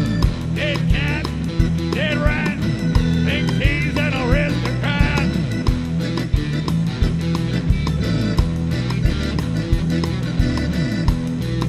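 Live rock band playing: a steady drumbeat with bass and keyboards, and a high wavering melody line over them for the first five seconds or so.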